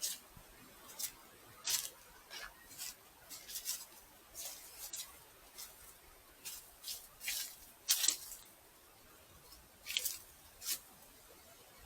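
Footsteps crunching on a gravel or leaf-strewn path, one short crunch with each step, pausing for a moment late on.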